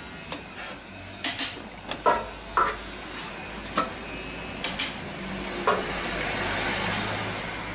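Metal tools and parts clinking and knocking at a car engine's air-conditioning compressor and mounting bracket: about eight sharp, ringing clinks, with a soft rushing hiss through the second half.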